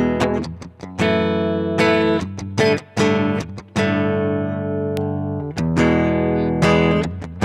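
Gibson Studio electric guitar played clean through a Marshall amp's clean channel with no effects and no reverb, taken straight from the amp's DI out. Chords are struck about once a second, and one chord is left ringing for a couple of seconds midway.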